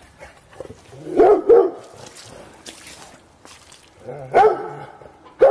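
Dog barking: two quick barks about a second in, then another near the end.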